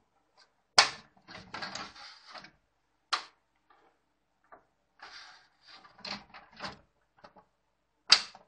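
Side access cover of a Sharp AR-6020D photocopier being unlatched, swung open and pushed shut. A sharp click about a second in and another around three seconds come with rattling and scraping of the cover and paper-path parts, and a loud latching snap near the end as the cover closes.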